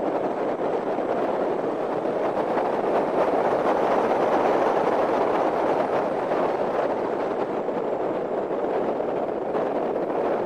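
Hyundai Genesis Coupe on the move: a steady rush of road and wind noise, with no engine note standing out.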